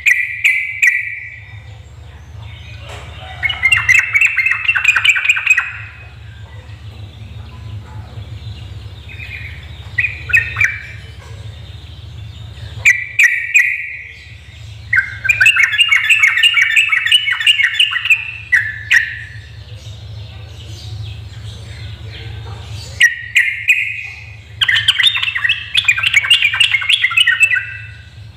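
Yellow-vented bulbul (trucuk) singing: short bubbly phrases alternate with three longer runs of rapid chattering notes, the kind of song keepers play to get other bulbuls singing. A steady low hum and a few light clicks lie underneath.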